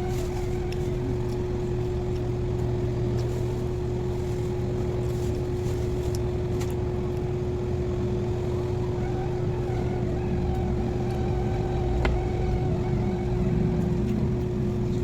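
A motor running steadily, a low rumble with a constant humming tone and a few faint clicks.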